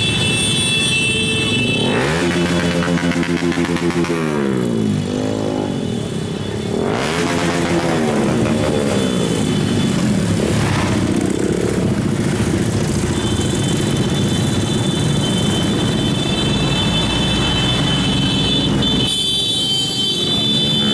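Many motorcycle and scooter engines in a passing convoy, revving and rising and falling in pitch as the riders go by, then settling into a steady drone. A high steady tone sounds over the engines at the start and again from about the middle on.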